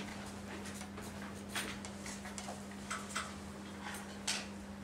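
Chalk writing on a blackboard: a few short, spaced-out taps and scratches of chalk strokes over a steady low hum.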